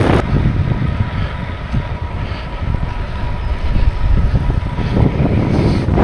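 Wind buffeting the microphone and road rumble from a road bike riding at speed, a dense low rumble that dips slightly about two seconds in, with a faint steady high whine under it.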